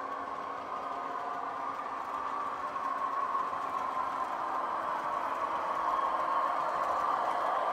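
ESU sound decoder in a Piko H0 class 612 Regio-Swinger model playing the diesel railcar's engine sound through its small speaker, with the model's wheels rolling on the track. It grows louder as the train nears.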